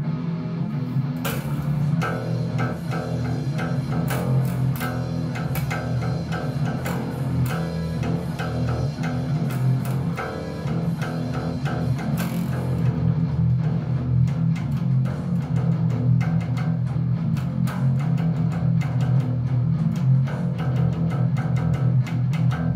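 Electric bass guitar playing a rock riff along with a full band recording, with drums and guitar.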